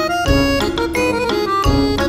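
Background music: a melody of short, quickly changing notes over a heavy low beat that returns about every second and a half.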